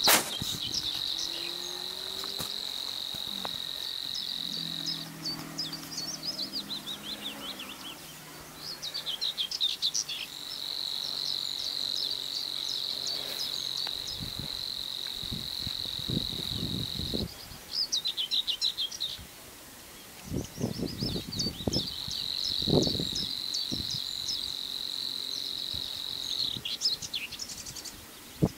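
Savi's warbler singing: three long, steady, high buzzing reels several seconds each, like an insect's trill, separated by runs of separate quick ticking notes that lead into the next reel. Low rumbles sound faintly underneath.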